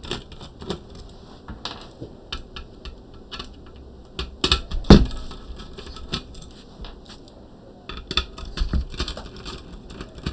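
Screwdriver taking the screws out of a Power Macintosh 9600 CPU daughterboard, with the board being handled: scattered light clicks, taps and scrapes of metal and circuit board, with one sharper knock about five seconds in.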